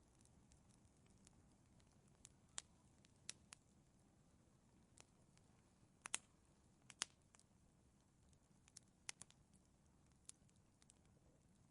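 Wood fire crackling: scattered sharp pops and snaps over a faint low hiss, the loudest two about six and seven seconds in.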